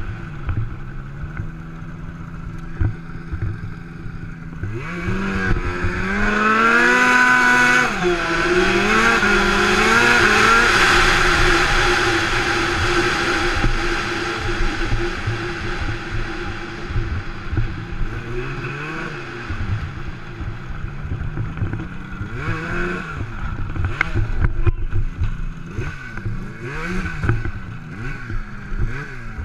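Turbocharged Arctic Cat M1000 snowmobile's two-stroke twin engine heard from on board: running low at first, then revving up hard about five seconds in with the pitch climbing and wavering, and after that running at changing throttle with a few more rises before easing off near the end.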